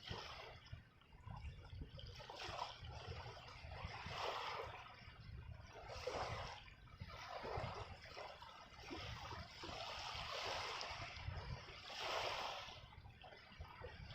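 Small waves washing and lapping at the water's edge, swelling and fading every second or two over a steady low rumble.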